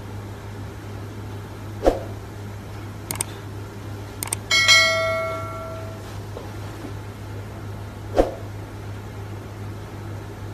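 A single bell-like ring about four and a half seconds in, dying away over a second or so, over a steady low hum. Two dull knocks come before and after it.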